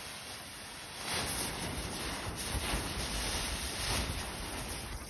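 Lit visco fuse burning through a cow-hitch fuse junction with a steady hiss, louder from about a second in as the joined fuse flares.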